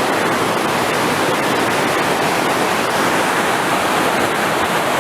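Loud, steady rush of water from the Dan Spring, one of the sources of the Jordan River, pouring and tumbling in a dense, even roar.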